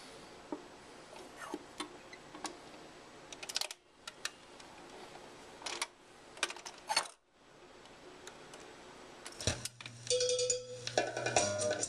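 Clicks and knocks of a record being handled and set on a Garrard turntable, then a thump as the tonearm sets down about nine and a half seconds in. The record starts playing music through the Pilot hi-fi near the end.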